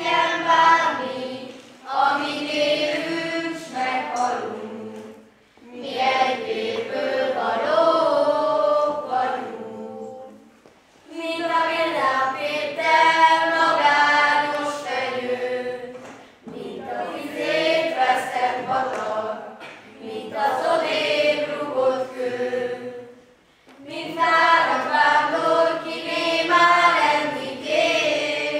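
A group of children and teenagers singing a song together without accompaniment, in phrases of a few seconds with short pauses for breath between them.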